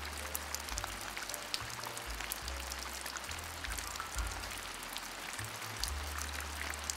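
Rain falling on a car, heard from inside the cabin: a steady patter of many small, sharp drop hits over a hiss. A low bass line stepping between notes runs underneath.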